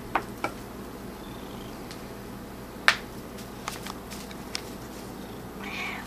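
A few light clicks and taps, the sharpest about three seconds in, as a cat moves among objects on a cluttered desk.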